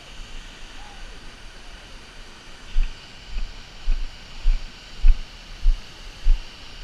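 Low, dull thuds at a steady walking pace, about every half second, starting a little under halfway through, over a steady hiss of wind or rushing water. The thuds are the kind of jolts that footsteps give a handheld camera.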